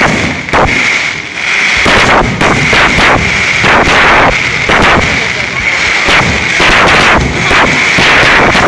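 Aerial fireworks shells bursting in a rapid volley, a dozen or more loud bangs in quick succession. A steady high-pitched tone runs underneath.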